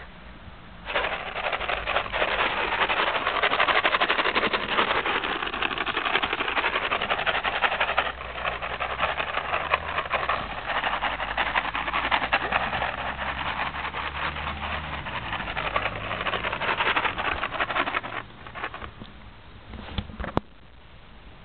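A box of treats being shaken, the treats rattling inside in a dense, continuous rattle. It starts about a second in and stops a few seconds before the end, followed by a single sharp click.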